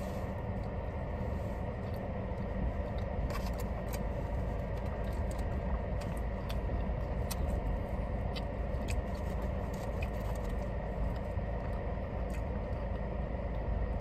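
Steady low hum inside a parked car, with scattered light clicks and scrapes of eating with a plastic fork from a foil-covered foam takeout container.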